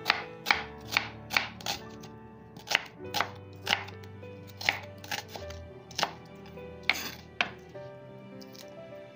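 Kitchen knife slicing a half white onion on a wooden cutting board: about a dozen sharp knocks of the blade on the board, quicker at first and then more spaced out, stopping a little before the end. Background music plays underneath.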